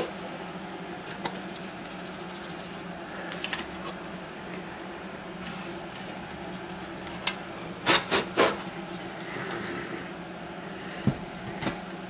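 Metal case of a Vevor tabletop electric melting furnace being handled and knocked while turned over to shake loose flakes out: scattered sharp knocks and clatters, with three close together about eight seconds in.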